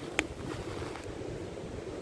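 Wood campfire giving a single sharp pop about a quarter-second in, over a steady wash of gently moving water and wind on the microphone.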